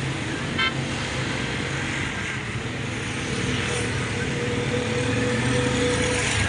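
Busy city street traffic: motor vehicle and motorcycle engines running over steady road noise, with a short high toot about half a second in.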